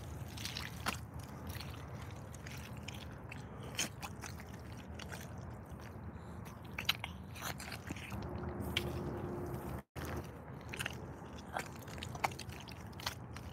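Irish Setter rubber boots squelching and crunching in wet, sandy mud as the wearer treads and shifts in place, with many small sharp crackles and sucking clicks. The sound cuts out for an instant about ten seconds in.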